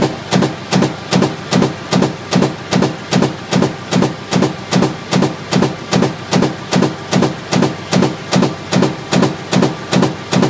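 Bruderer high-speed stamping press running a progressive die with an in-die tapping unit, cycling steadily at 150 strokes per minute: an even, rhythmic sharp knock about two and a half times a second.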